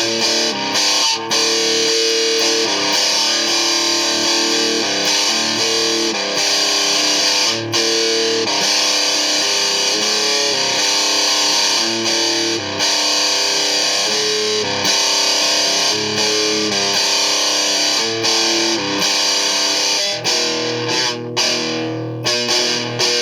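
Distorted electric guitar playing sustained chords that change every second or two, with a couple of brief breaks near the end.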